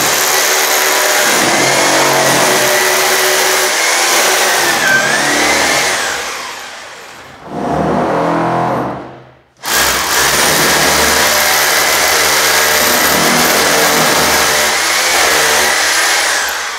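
Rotary hammer with a 6 mm bit drilling holes into the ceiling for conduit-clamp dowels. Two long runs: the first tails off about seven seconds in and stops, then the second starts abruptly just before ten seconds in and stops near the end.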